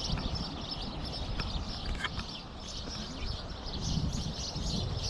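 A dense chorus of many small birds chirping and singing all at once, over a low rumble.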